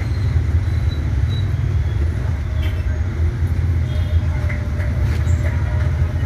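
Window-type air conditioner running, its compressor giving a steady, heavy low hum with vibration. It is the hum and vibration of a unit that no longer cools.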